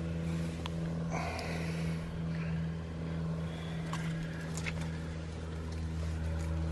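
Steady low drone of an engine running at an even pace, a constant hum with no change in pitch, which cuts off abruptly at the end. A few light clicks and rustles sound over it.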